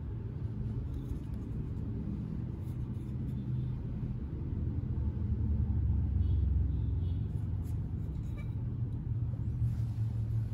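Low rumble that swells about five seconds in and eases again after about seven seconds, with a few faint clicks.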